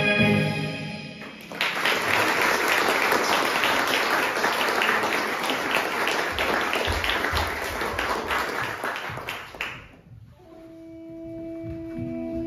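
A recorded music track stops about a second in, and an audience applauds for about eight seconds. Near the end a new tune of long held notes starts.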